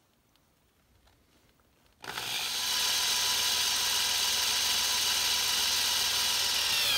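Electric drill starting about two seconds in and running steadily with a whine, drilling out the metal rivet of a die-cast toy car. Its pitch dips just as it stops near the end, as the rivet gives way.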